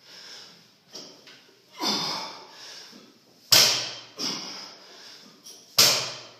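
A barbell loaded with bumper plates thudding onto a rubber floor twice, about two seconds apart, as deadlift reps are set down, with hard breathing between.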